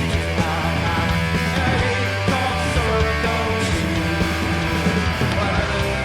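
A rock band playing live, mid-song: distorted guitars, bass and drums at a steady, full level, with regular drum hits.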